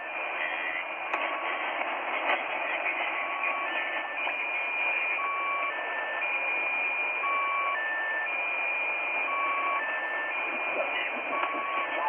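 Shortwave receiver in upper sideband picking up 'The Squeaky Wheel', a Russian military channel marker: a repeating cycle of short electronic tones at about three pitches, a low beep, a middle one, then a longer high tone, coming round about every two seconds over steady static hiss.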